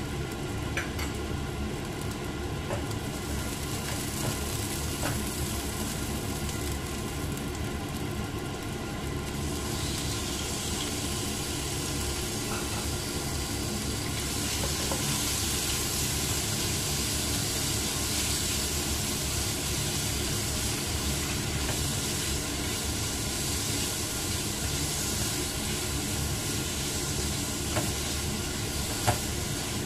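Frying in oil in a nonstick wok over a steady low hum. About ten seconds in, a louder sizzle starts as marinated pork strips go into the hot pan with the onions and ginger. It grows stronger a few seconds later, and the spatula knocks against the pan twice near the end.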